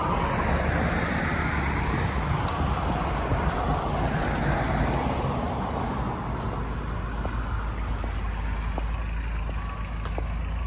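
Road traffic: cars passing on a street, their noise swelling as each goes by, over a steady low rumble.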